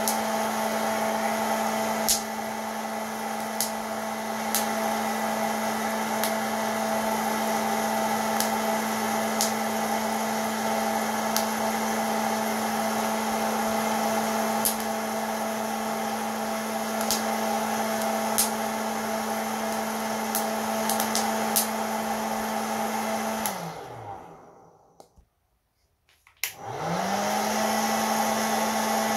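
Hot-air popcorn maker's fan motor running steadily as it roasts coffee beans, with scattered sharp cracks from the beans. Near the end the motor is switched off and winds down, falls quiet for about two seconds, then starts again and spins back up.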